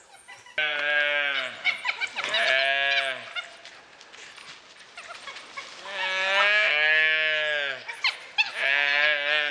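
Gaur calling: repeated drawn-out bleating bawls, each about a second long and dropping in pitch, the distress calls of the gaur during a dhole attack on its calf.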